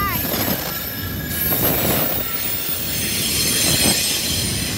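Double-stack intermodal freight train rolling past: a steady rumble of wheels on the rails with a high, thin wheel squeal over it.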